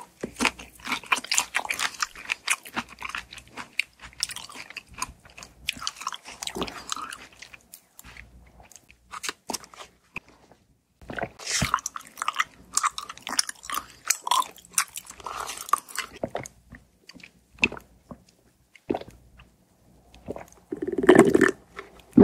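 Close-miked biting and chewing of fresh strawberries with whipped cream: wet, crisp bites and mouth sounds in clusters separated by short pauses. Near the end comes a louder, lower burst of sound.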